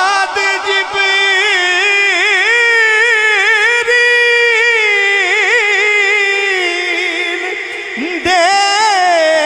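A man's voice singing a naat into a microphone, drawn out on long held notes that waver and turn in ornaments without clear words. About eight seconds in there is a short break for breath, then a new, louder phrase begins.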